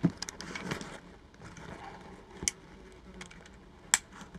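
Backpack handling: fabric rustling and gear being shifted, with a soft knock at the start and two short sharp clicks, about two and a half and four seconds in.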